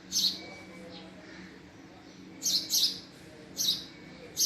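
Male house sparrow chirping: about five short, sharp chirps, two of them close together about two and a half seconds in.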